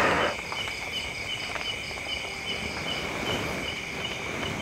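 Insects calling: a steady high drone with a regular chirping above it, about five chirps every two seconds. A brief rush of noise fades out at the very start.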